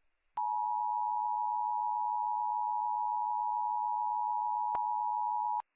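Emergency Alert System attention signal: a steady two-tone alert tone held for about five seconds, starting about half a second in and cutting off sharply near the end.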